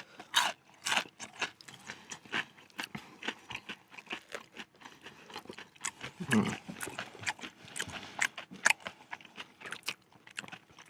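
Close-up chewing and crunching of a crispy fried-chicken burger: a run of irregular wet clicks and crunches, with a short low hum from the eater about six seconds in.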